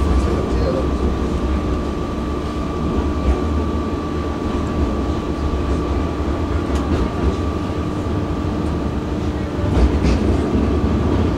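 Tram running: a steady low rumble with two even electric hum tones held throughout, one low and one higher.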